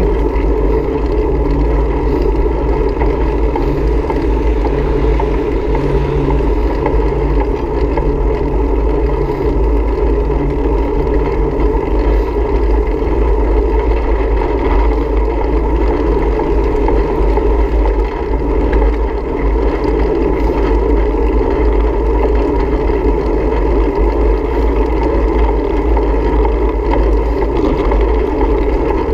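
Steady wind rush and road rumble picked up by a bicycle-mounted camera while riding along a paved road.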